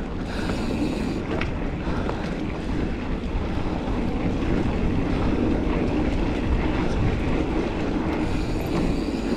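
Wind buffeting a helmet-mounted action camera's microphone and a Giant Fathom mountain bike's tyres rolling over a dirt trail, a steady rumbling rush of noise.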